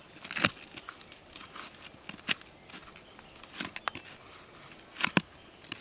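A hand tool scraping and poking gritty soil to clear it away from a buried gold nugget: a run of short crunching scrapes and ticks, the loudest about half a second in, a little past two seconds, and about five seconds in.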